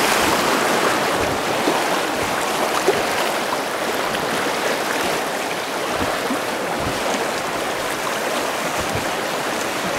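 Fast, shallow river current rushing and splashing over stones, heard close to the water from a drifting boat: a steady rushing noise.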